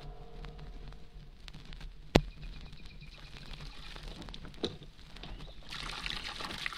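Faint record hum with two sharp clicks of surface crackle. Near the end comes a hiss of water splashing as it is pumped into a garden barrel.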